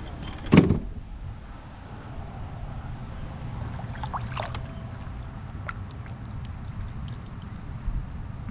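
Lake water splashing and trickling at the side of a kayak, with one sharp splash or knock about half a second in and a few light clicks around four seconds.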